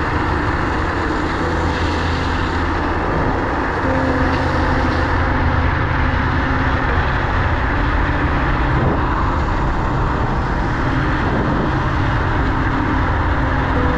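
Steady wind rush buffeting the microphone of a GoPro riding on a Dualtron Thunder electric scooter at speed, with a faint hum from the scooter's hub motors underneath.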